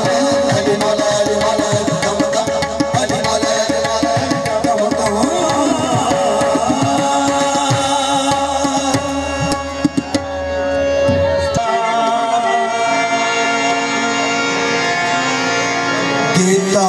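Live qawwali music: harmoniums playing sustained chords and melody over tabla drumming. A little past halfway the low drum strokes stop and the harmonium notes carry on.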